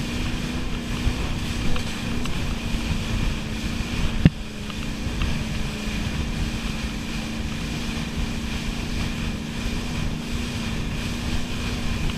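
Wake boat's engine running steadily under way, with wind buffeting the microphone and the wake churning behind. A single sharp knock about four seconds in.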